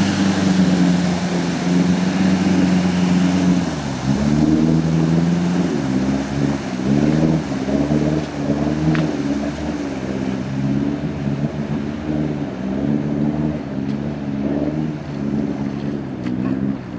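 GAZ-69 off-road vehicle's engine running at a steady speed, then from about four seconds in revving up and down repeatedly as the throttle is worked.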